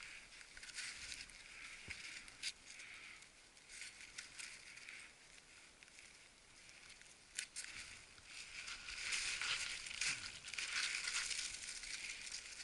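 Snow crunching and scraping under a climber's boots and ice axe, in short uneven patches, with two sharp clicks about two and a half and seven and a half seconds in. The crunching turns denser and louder from about nine seconds in.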